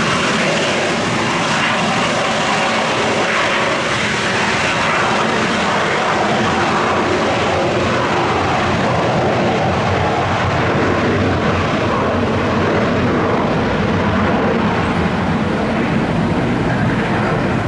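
Jet airliner engines running loud, a steady broad rushing noise. The high hiss thins out over the second half while the deep rumble grows stronger near the end.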